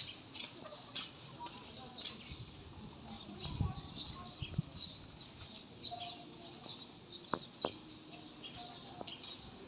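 Small birds chirping repeatedly in short high calls, with a couple of low thuds about three and a half seconds in and two sharp clicks a little after seven seconds.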